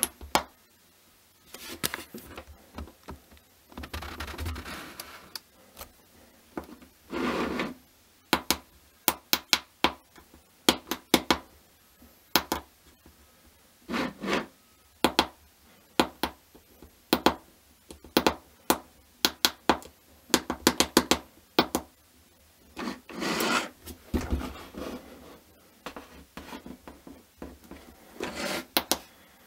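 Sharp clicks of small tactile push buttons being pressed on a 3D-printed plastic gadget, often several in quick succession, mixed with short bursts of rubbing and scraping as the hinged plastic device is handled and slid on a wooden tabletop.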